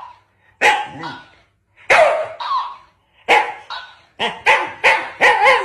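Shiba Inu giving short barks and yips at a talking plush duck toy, which answers in a high-pitched voice. The barks come singly at first, then several in quick succession near the end.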